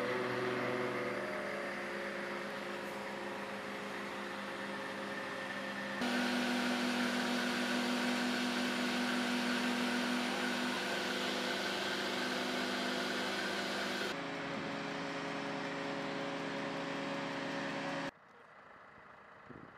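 Fuel tanker truck's pump and engine running steadily while delivering fuel to an aircraft: a mechanical hum with several held tones. It shifts abruptly in level and tone twice and drops much quieter near the end.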